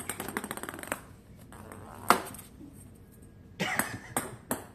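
Plastic ping pong ball bouncing and tapping on a hardwood floor as a cat bats it: a rapid run of taps in the first second, one sharp knock about two seconds in, and another cluster of taps and knocks near the end.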